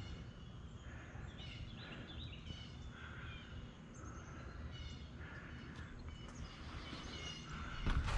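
Small birds chirping and singing in short repeated calls over a steady low outdoor rumble.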